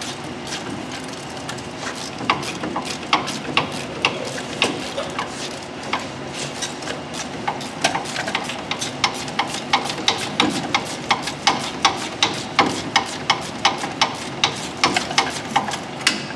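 Hand ratchet wrench clicking as it is worked back and forth on a front-suspension bolt of a 1986 Chevy C10 pickup. The clicks are scattered at first, then become a steady run of about three a second from about halfway on.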